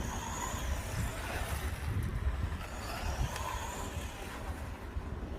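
Wind buffeting the microphone, with the high whine of the WLtoys 144001 RC buggy's electric motor rising and falling twice as it is driven at about half throttle.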